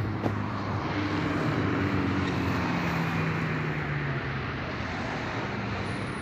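A steady motor engine drone with a low hum that shifts slightly in pitch and eases off after about four seconds, over an even background hiss.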